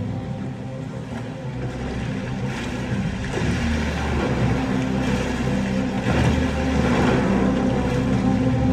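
A film soundtrack heard through cinema speakers: a boat's engine running over the wash of the sea, growing gradually louder.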